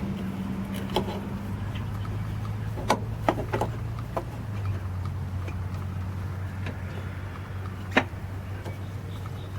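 A few light clicks and knocks of a diesel tractor's fuel filter being fitted back into its housing by hand, over a steady low hum that drops a little in pitch about halfway through.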